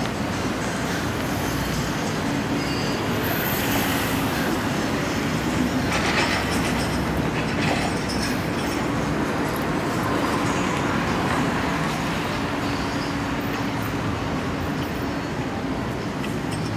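Steady rumble and rattle of a moving vehicle with a rail-like quality, heard from inside, swelling slightly about six seconds in.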